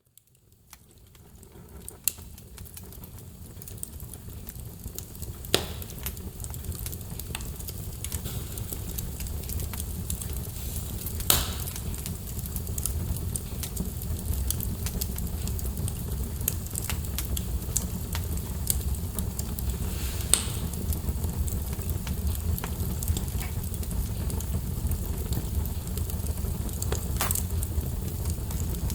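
Wood fire burning in a fireplace: a steady low rumble of flames with sharp crackles and pops every few seconds. The fire fades in over the first several seconds.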